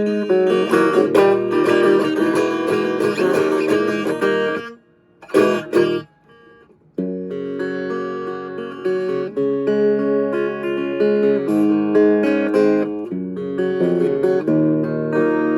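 Guitar played clean, chords and picked notes ringing out. About five seconds in the playing stops for roughly two seconds, with a couple of short strums, then carries on.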